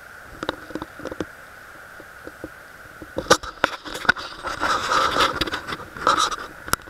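Handling noise on a Pentax WG-2 compact camera: a few light clicks, then from about three seconds in a dense run of knocks, scraping and rubbing as the camera is moved. A steady faint high tone runs underneath.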